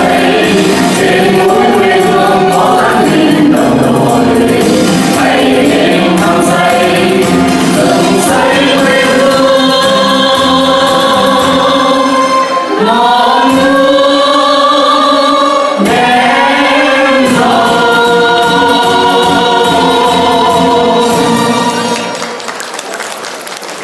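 Mixed male and female vocal ensemble singing into microphones over instrumental accompaniment, with long held notes; the music fades out near the end as the song finishes.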